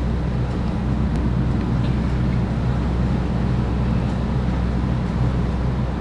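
Steady low drone of a Nordhavn trawler yacht's diesel engine running underway.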